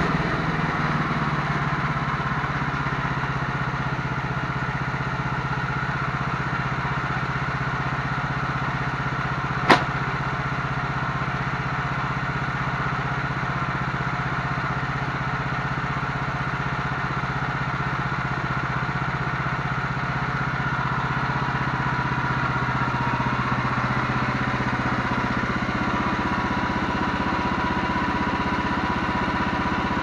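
TMG PSM26 portable bandsaw sawmill's engine running steadily at constant speed as the sawhead travels along the log track, with a single sharp knock about ten seconds in. A faint high whine joins the engine sound after about twenty seconds.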